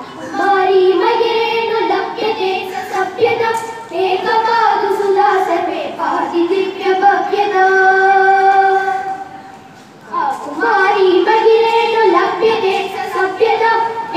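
Children singing a song in Sanskrit, with a long held note a little past halfway and a short break just before the singing picks up again.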